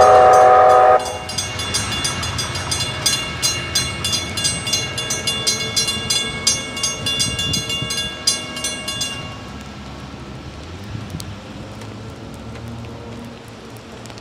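A K5LA five-chime wayside horn sounds its chord for about a second and cuts off. The crossing's WCH mechanical bells then ring in quick, even strokes, stopping about nine seconds in as the gates rise.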